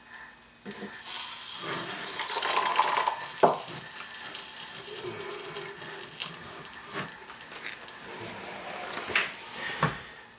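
Metal clinks, scraping and a few sharp knocks from work on copper pipe fittings, with a hissing stretch in the first few seconds.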